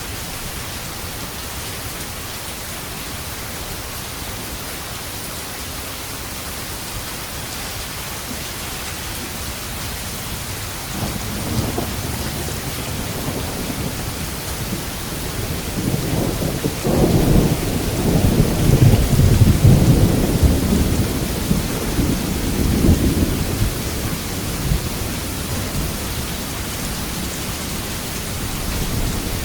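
Steady rain with a long, rolling rumble of thunder that builds about a third of the way in, is loudest just past the middle, and dies away before the end.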